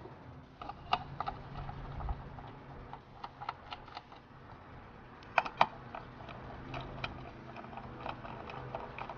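Irregular light clicks and metallic taps of hand tools and plastic intake parts being worked while the air box and intake tube are fitted back on, with two sharper clicks close together about five and a half seconds in.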